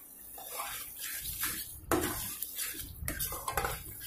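Spatula scraping and stirring thick masala around a kadai, with irregular scrapes over a steady sizzle as the spice paste fries down on full flame.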